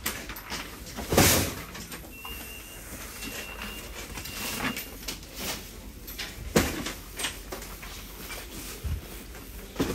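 Shop-aisle background noise with two sharp knocks, one about a second in and a louder one past the middle, plus a few smaller clicks. A couple of short, faint, high beeps sound about two to three seconds in.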